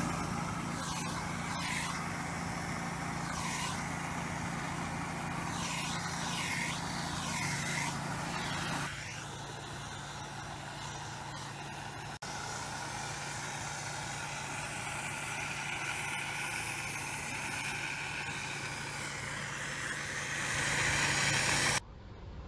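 Weedtechnics steam weeder running: a steady low hum from the unit under the hiss of low-pressure steam from the lance. The sound drops abruptly just before the end.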